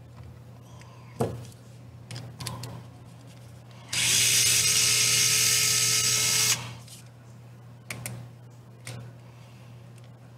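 Small cordless electric screwdriver running steadily for about two and a half seconds, starting about four seconds in and cutting off suddenly, as it backs a screw out of the bottom of a TRX-4M transmission case. A few light clicks of the plastic case being handled come before and after.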